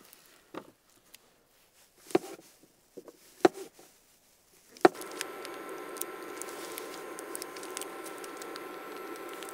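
Chef's knife slicing mushrooms on a plastic cutting board: a few separate cuts and taps. About five seconds in, a sharp click, then a steady hum with a couple of faint whining tones, typical of a portable induction cooktop running with a pan on it.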